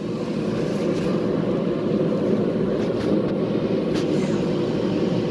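Steady rushing roar of a running shop space heater, even in level throughout, with a couple of faint clicks of small parts being handled.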